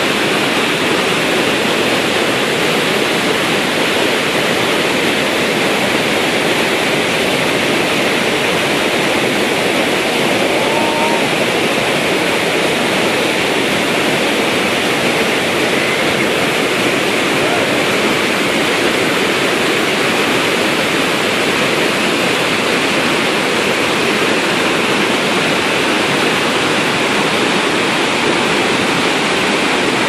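Iguazu Falls' cascades: a loud, steady rush of falling water.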